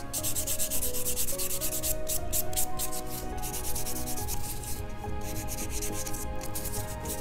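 Sponge nail sanding block (buffer) rubbed quickly back and forth across fingernails, several rasping strokes a second with a couple of short pauses, smoothing the nail surface before the base gel goes on.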